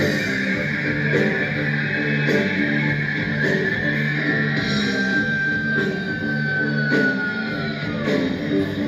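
Guitar-led music with a steady beat; a held high note slides slightly downward between about five and eight seconds in.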